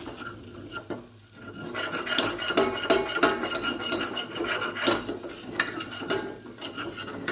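A cooking utensil scraping and rasping against the bottom of a pan, stirring besan (gram flour) as it roasts in ghee over a low flame, with small clinks of metal on the pan. The strokes come in a quick, uneven run, with a short lull about a second in.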